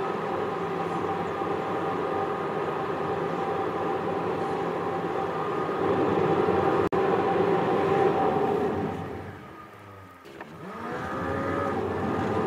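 Car driving on a road, heard from inside the cabin: steady engine and road noise with some tonal hum. The sound cuts out for an instant about halfway through, then fades quieter and rises back with a rising pitch near the end.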